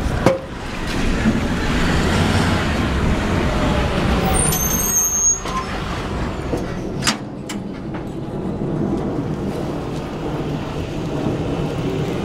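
Taylor Dunn MX600 24-volt electric cart driving across concrete, a steady running noise with a couple of sharp clicks and a brief high squeal about five seconds in.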